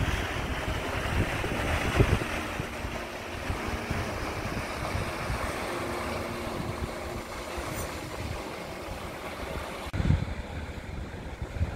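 Small waves washing and breaking against rocks, with wind buffeting the microphone in gusts. There are low thumps about two seconds in and again near ten seconds.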